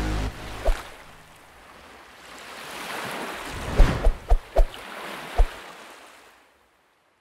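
A rushing noise, like surf or wind, swells and fades away, with about six sharp thumps, most of them bunched around the middle, before it dies out to silence.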